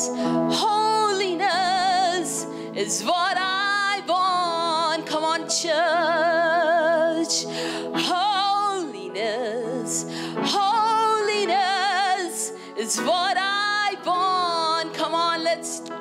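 Worship music: a woman's voice singing slow phrases with a wide vibrato over sustained instrumental chords.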